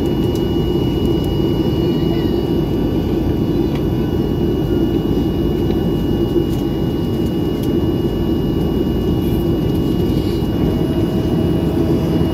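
Steady rumble and hum heard inside the cabin of a Ryanair Boeing 737 on the ground, with a thin, steady high-pitched whine running through it.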